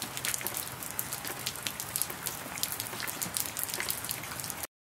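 Rain falling: a steady hiss with many sharp raindrop taps close by, cutting off suddenly near the end.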